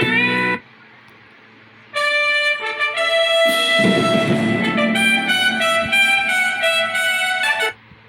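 Recorded musical sound-effect clips played back one after another. A short clip cuts off about half a second in. After a pause, a brassy, trumpet-like musical sting plays for nearly six seconds, with a noisy swell early on, and stops abruptly.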